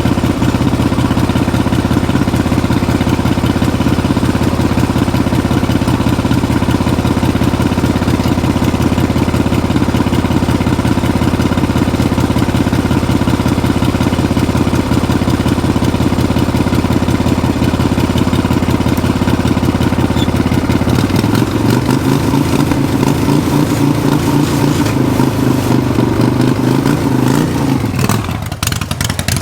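Harley-Davidson 1300cc V-twin engine of a go-kart running loud and steady with an even firing pulse; about two-thirds of the way through its pitch rises and falls again as it is revved, then it drops away and breaks up near the end.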